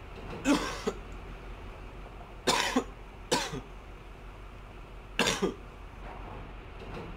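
A man coughing four times, harsh hacking coughs spaced a second or two apart.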